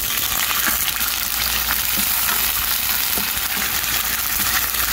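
Raw chicken pieces sizzling steadily in hot oil in a wok, with a few short clicks of a metal spoon stirring them.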